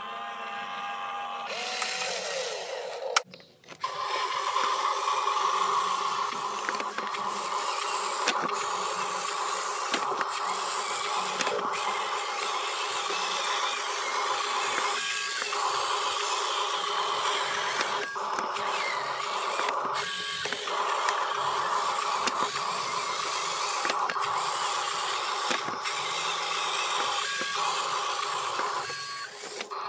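Steady whine of a radio-controlled model dump truck's small electric motor and gearbox as it drives. The sound drops out briefly about three seconds in and shifts slightly in pitch a few times later.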